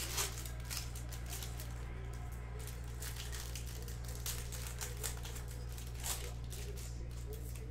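Foil trading-card pack wrapper crinkling and cards being handled in short, crisp rustles, about five of them, over a steady low hum.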